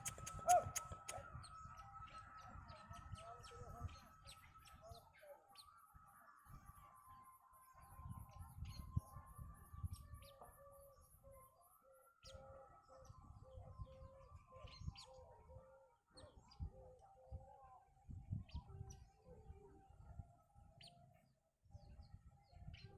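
Small birds chirping, with short scattered chirps over a steadier background of sustained tones and an on-and-off low rumble.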